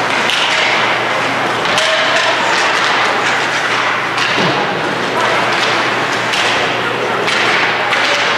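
Ice hockey game sounds in an arena: several sharp knocks of sticks, puck and boards over a steady wash of skating and crowd noise.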